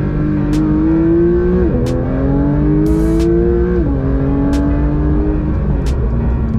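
Porsche 992 GT3's naturally aspirated 4.0-litre flat-six, breathing through a titanium Fi Exhaust rear section, accelerating. The engine note climbs and drops sharply at two upshifts about two seconds apart, then holds steady and eases off near the end.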